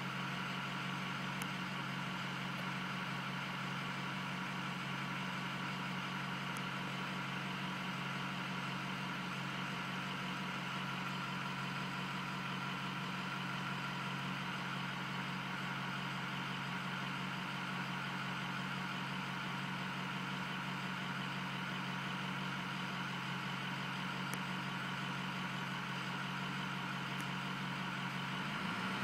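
Diesel V8 engine idling steadily at operating temperature during an injector balance test, with a slight shift in pitch right at the end.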